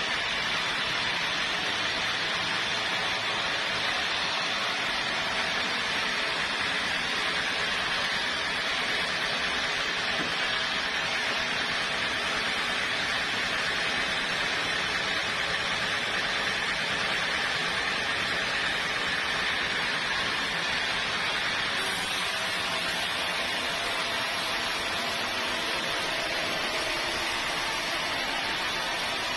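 Sawmill saw running steadily through a log, giving an even, unbroken whir.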